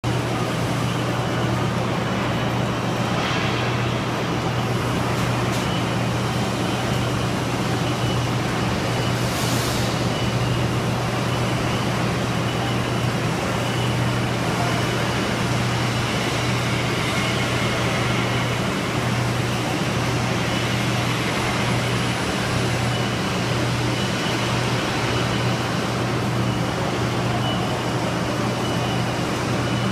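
Steady workshop machinery hum: a constant low drone over an even noisy wash, with a few brief hisses or clicks early on.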